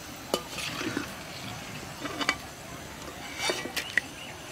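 A metal slotted spoon clinking a few times against a metal kadai as fried bitter-gourd pakoras are lifted out, over a steady sizzle of frying oil.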